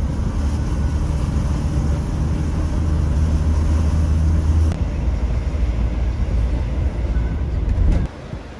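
Loud, steady low rumble of a running vehicle engine, changing abruptly about halfway through and cutting off shortly before the end.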